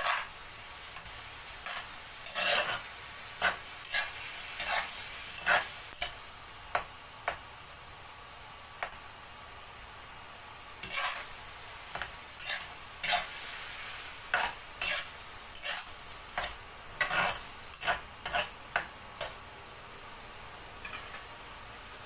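A metal spatula scraping and knocking against a stainless steel wok during stir-frying, in irregular strokes about a second apart, over a steady sizzle. The stirring stops a few seconds before the end, leaving only the sizzle.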